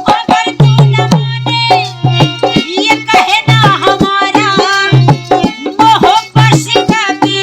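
Instrumental interlude of a folk ghazal: tabla-style hand drums playing a busy rhythm with deep bass strokes, under a wavering melody line.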